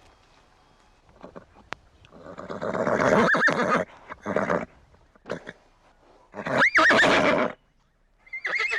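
Horse neighing: a long whinny about two and a half seconds in, a couple of short calls after it, and a loud whinny that rises and falls in pitch near the end.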